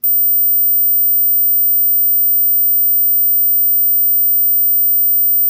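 A steady, very high-pitched pure sine-wave test tone, loud and unchanging, set near the upper limit of human hearing: a hearing-test frequency that some listeners can hear and others, especially adults, cannot.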